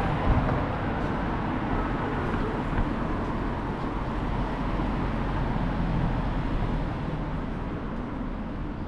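City street traffic: a steady rumble of passing vehicles, the low rumble easing a little near the end.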